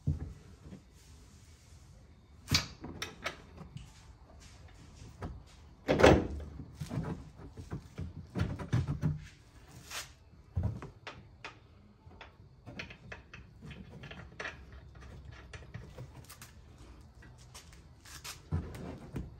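Metal clunks and clicks of a front strut assembly being pushed up into a pickup's strut tower, and of its top nuts being started by hand on the studs. A few louder knocks come first, the loudest about six seconds in, followed by lighter, quicker ticking.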